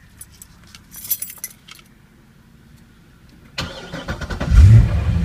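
A few light clicks about a second in, then the 2006 Corvette Z06's LS7 V8 is cranked briefly by its newly fitted remanufactured starter and catches almost at once with a loud flare of revs, settling into a steady idle near the end, heard from inside the cabin.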